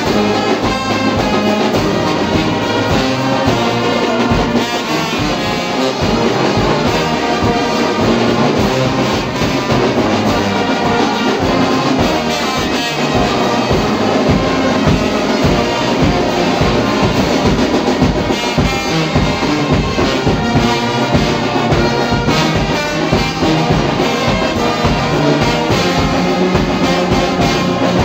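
Brass band of sousaphones, trumpets and trombones playing loudly together, with a drum keeping a steady beat under the low brass.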